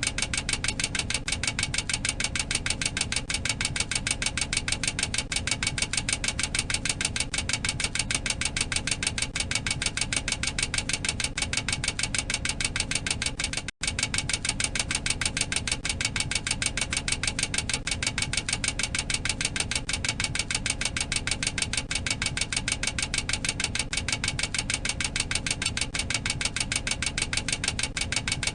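Boeing 737-800 cockpit overspeed warning clacker sounding continuously: a rapid, even clacking that warns the aircraft is exceeding its maximum operating speed. It breaks off for an instant about halfway through.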